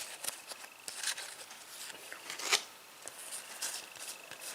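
Foil trading card pack being torn open and crinkled, with the cards rustling in the hand: a run of soft rips and crackles, the loudest about two and a half seconds in.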